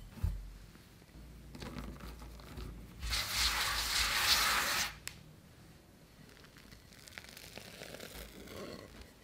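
A hand rubs and spreads flour across a silicone pastry mat, making a scratchy brushing sound for about two seconds, starting about three seconds in. A soft knock comes just after the start, and quieter handling of the dough follows.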